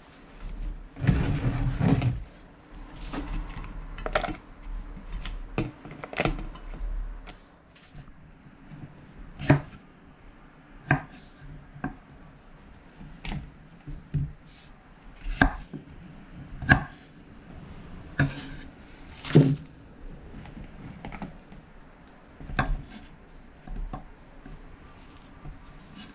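Paper towel rustling in the first few seconds. Then a kitchen knife cuts the stem ends off okra pods on a bamboo cutting board, with sharp knocks of the blade on the wood roughly once every second and a half.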